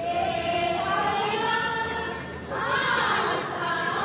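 A group of high voices singing an Adivasi dance song together in long held phrases, with a short break about two and a half seconds in.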